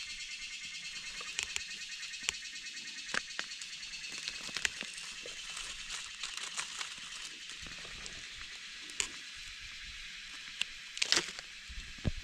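Dry leaf litter rustling and crackling, with scattered sharp clicks, as gloved hands dig a mushroom out of the forest floor. A steady high drone of forest insects runs underneath.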